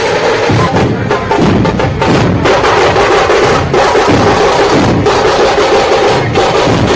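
Loud dhol-tasha ensemble drumming: barrel drums and sharp stick-struck tasha drums playing together without a break.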